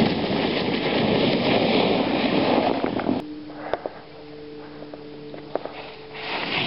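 Wind buffeting the camera's microphone while skiing downhill, a loud rush that cuts off abruptly about three seconds in. A quieter steady low hum follows, with a few faint clicks.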